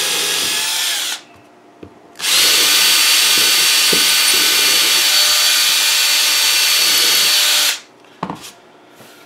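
Cordless drill boring a hole into an MDF pattern disc. It runs for about a second, stops briefly, then runs again steadily for about five seconds with a high whine before stopping. A short knock comes near the end.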